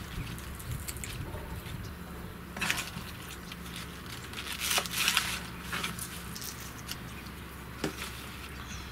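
Kitchen scissors snipping through spring onion stalks on a wooden cutting board: a handful of short, crisp cuts, most of them bunched around the middle.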